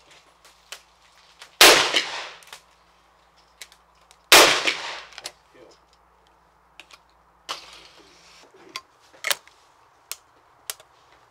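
Side-by-side hammer shotgun fired twice, loud shots about three seconds apart, each with a ringing tail. A few lighter sharp clicks follow in the second half.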